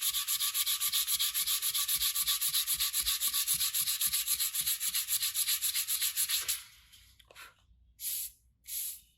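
Sandpaper rubbing on an aluminium motorcycle exhaust in quick, even back-and-forth strokes, several a second. The strokes stop about six and a half seconds in, and two short single strokes follow near the end.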